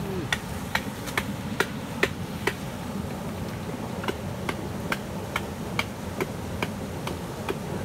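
Steady rush of river rapids, with a sharp regular clicking, about two to three clicks a second, running through it.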